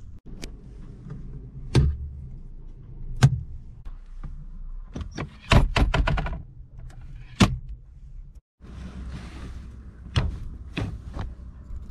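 Sharp clicks and knocks from a Volvo 240's interior fittings. About halfway through there is a quick run of clicks as the glovebox lid is worked, and near the end two or three clicks from a handle under the dashboard being pulled.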